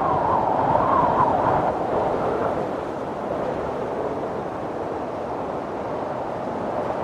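Wind blowing through a bamboo forest, a steady rushing that swells in a gust over the first couple of seconds and then eases to an even level.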